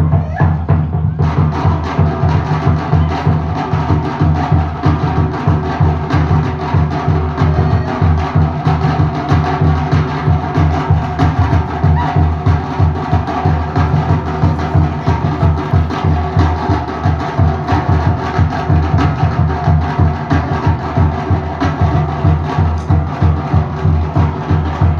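Pacific Island drum ensemble playing: wooden slit drums struck in a fast, driving rhythm over a deep drum.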